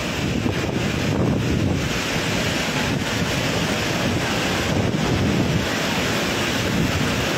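Strong typhoon wind gusting and buffeting the microphone, with torrential rain, making a steady, loud rushing noise.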